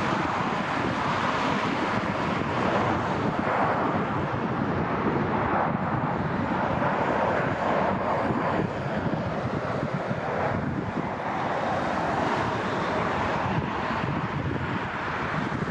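Steady jet airliner engine noise, mixed with wind buffeting the microphone.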